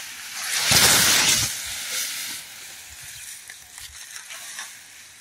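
A large bundle of freshly cut grass, about 60 to 65 kg, rustling loudly as it is heaved up in one swing about a second in, then softer rustling that fades as it settles.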